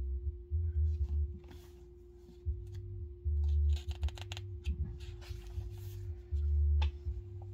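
Paper rustling and handling, like a book's pages being turned, with irregular small clicks and low thuds over a steady faint hum.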